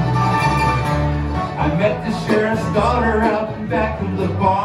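Live bluegrass band playing: upright bass notes under strummed acoustic guitar and mandolin, with banjo and accordion.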